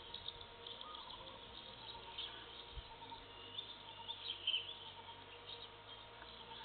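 Faint outdoor ambience of small birds chirping, with short high calls scattered throughout over a steady faint hum. There is one soft low thud about three seconds in.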